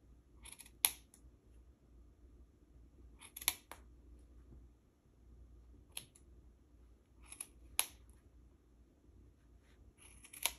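Scissors snipping through the wrapped yarn loops of a pom-pom: five sharp cuts about two to three seconds apart, each with a brief rustle of yarn just before it.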